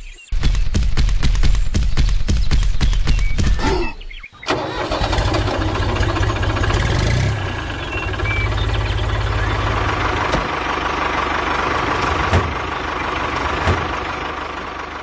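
A tractor engine starting, with rapid, regular firing knocks. About four seconds in it drops out for a moment, then settles into a steady run.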